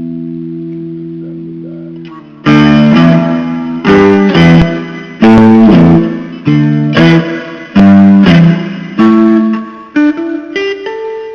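Guitar playing: a held chord rings out and fades, then a run of sharply struck chords about once a second, ending with single notes stepping upward.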